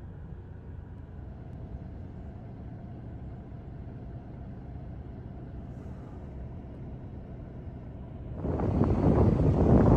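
Low, steady car cabin rumble of engine and tyres while driving slowly. About eight and a half seconds in, it cuts abruptly to a much louder, gusty rushing noise.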